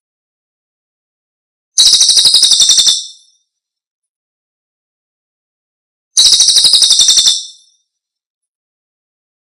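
Recorded celilin bird call played as a lure and tutor track: a rapid, high-pitched trill about a second long, heard twice, some four seconds apart.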